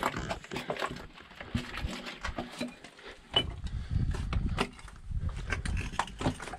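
Footsteps and scuffs on loose stones in a narrow stone-walled tunnel: irregular clicks and knocks of rock shifting underfoot, with a low rumble of handling noise from about three and a half seconds in.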